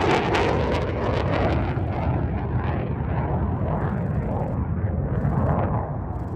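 Jet noise from an F-35A Lightning II's single Pratt & Whitney F135 engine as the fighter flies away. It crackles loudly at first, then fades to a lower rumble.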